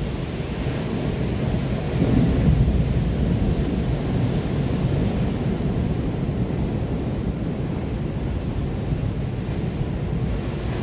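Wind buffeting the microphone along with sea surf: a steady, low rumbling noise that grows a little louder about two seconds in.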